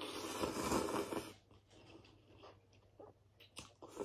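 A forkful of birria ramen noodles being slurped into the mouth for about a second and a half, followed by quieter wet chewing with small mouth clicks.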